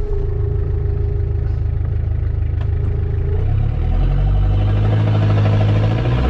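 1984 Mazda B2200's 2.2-litre Perkins four-cylinder diesel running, with a steady high whine over it for the first three seconds or so. About four seconds in, the engine speeds up and holds at higher revs.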